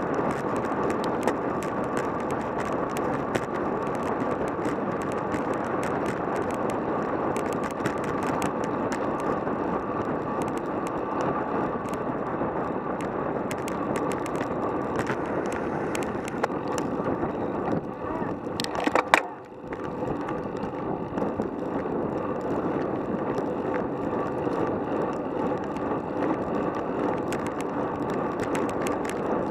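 Road bicycle riding fast, heard through a bike-mounted camera: steady wind and tyre-on-asphalt noise with frequent small clicks and rattles. A brief louder burst comes about 19 seconds in, then a short dip.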